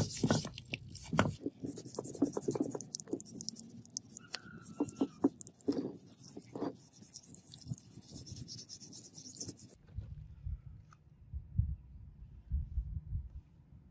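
Wet abrasive stone rubbing back and forth over a steel axe head under dripping water: an irregular gritty scraping over a steady hiss. About ten seconds in it stops abruptly, leaving only a low rumble.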